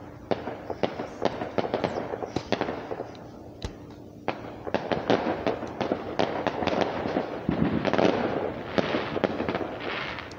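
Fireworks going off: an irregular string of sharp pops and crackles, with a short lull about four seconds in, then growing denser into thick crackling.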